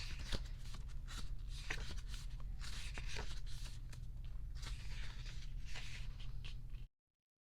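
Pages of a photobook being turned and handled, paper rustling and crinkling in irregular strokes over a low steady hum. The sound cuts off suddenly near the end.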